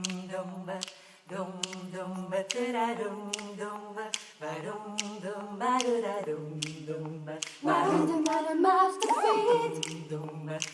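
A cappella group singing in close harmony over a sustained low bass voice, with sharp clicks keeping a steady beat.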